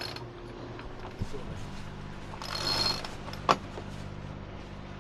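Sailing yacht's cockpit sheet winch ratcheting briefly about halfway through, followed by one sharp click.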